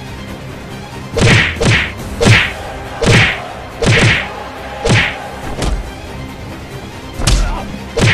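Dubbed fight-scene punch sound effects: about nine sharp swish-and-thud hits, irregularly spaced, with a gap of over a second before the last two. Background music runs underneath.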